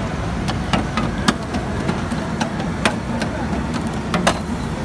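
Charcoal grill fire crackling and popping in irregular sharp snaps under wire baskets of grilling fish, over a steady low rumble.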